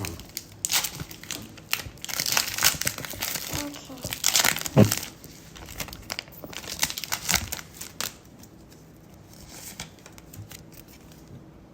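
Foil Pokémon booster pack wrapper crinkling and tearing as it is pulled open by hand: a run of irregular crackles that dies down about eight seconds in.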